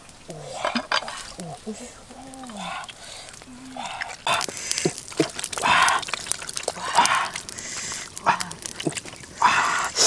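Water poured over a cow's leg being washed, with bursts of splashing and scraping and sharp clicks, in the second half. Before that come a few short, low, pitched sounds like an animal's or a person's grunts.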